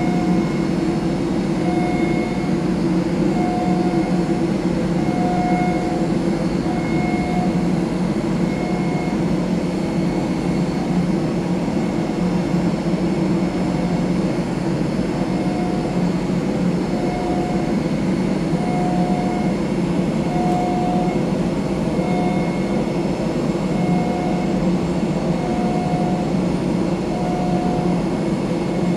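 Steady mechanical drone of machinery around a parked Airbus A320 at the gate, with a faint higher whine that comes and goes in short pulses every second or two.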